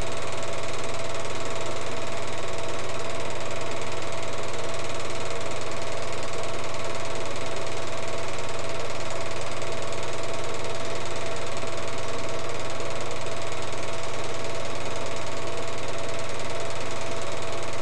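Film projector running: a steady mechanical whir and clatter with a constant hum and hiss underneath, unchanging throughout.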